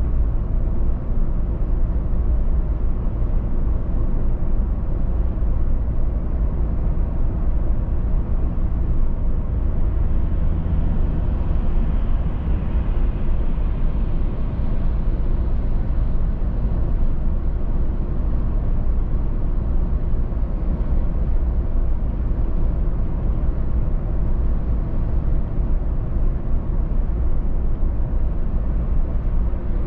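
A car driving at a steady speed: a continuous deep rumble of engine and tyres on the road, with a slight swell of higher road hiss about halfway through.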